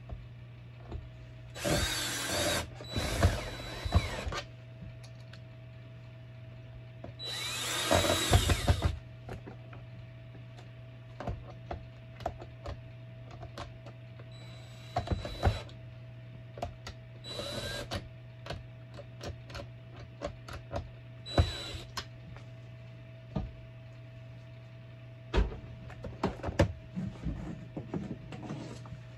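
Power drill driving screws into the plastic parts of a Bissell vacuum during assembly, run in about six short bursts, the longest about a second and a half, with clicks and knocks of handling the parts in between. A steady low hum runs underneath.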